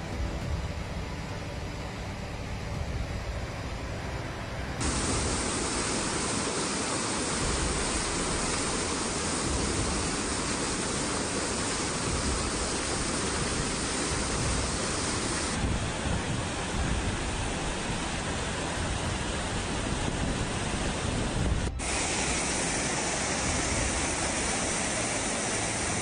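Fast-flowing floodwater rushing: a steady, dense noise whose tone changes abruptly a few times.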